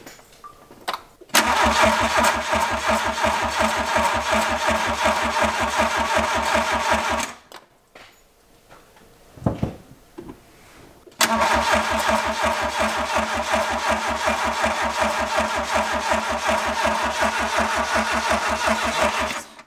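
VW Golf II engine cranked on the starter motor in two long attempts of about six and eight seconds, each an even, rapid pulsing of compression strokes over the starter's whine, without catching. It turns over rather slowly, and fuel has not yet been drawn through the mechanical pump to the carburettor.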